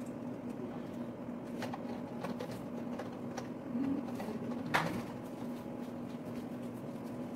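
Vegetable oil poured from a plastic jug into an aluminium pot, a faint pouring sound over a steady low hum, with one sharp click about five seconds in.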